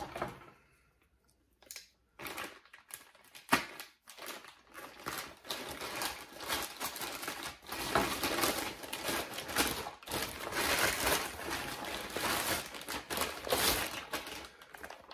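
Plastic packaging crinkling and crackling as it is handled and opened, in irregular bursts of rustling with a sharp snap about three and a half seconds in.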